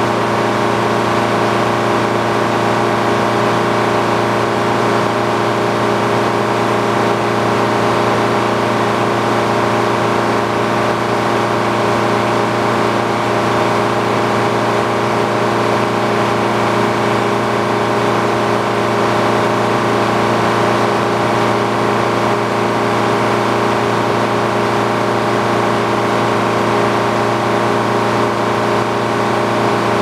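Engine driving an antique circle sawmill, running steadily with the large circular saw blade spinning free, not in the cut. A steady hum that does not change.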